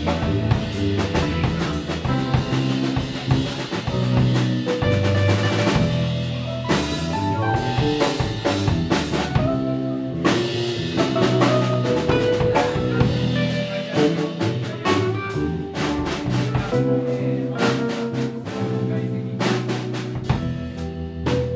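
Live instrumental trio playing: electric keyboard, electric bass guitar and drum kit, with frequent drum and rimshot hits over held keyboard and bass notes.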